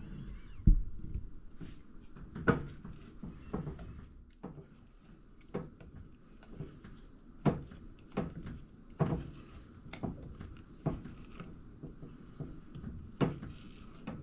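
Silicone spatula stirring scrambled eggs in a nonstick saucepan: short, irregular knocks and scrapes against the pan, roughly one a second, the loudest a thump about a second in.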